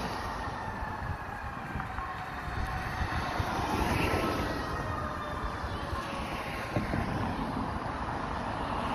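Fire engine siren wailing in the distance, its pitch gliding slowly down and up.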